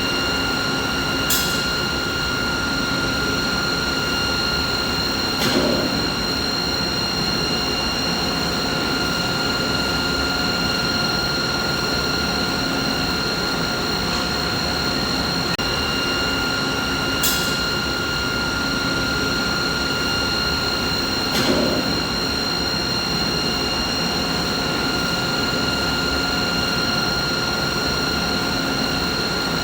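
Steady machinery noise: an even rushing hum with several steady whining tones on top, broken by four brief clicks.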